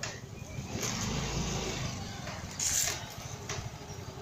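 Street traffic noise: a motor vehicle's engine running, louder about a second in, with voices in the background and a short hiss near the three-second mark.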